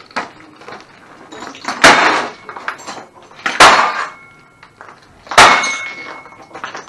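Three heavy blows of a hand-held smashing tool into a pile of broken electronics and plastic casings, about two seconds apart, each a loud crash followed by a short metallic ring.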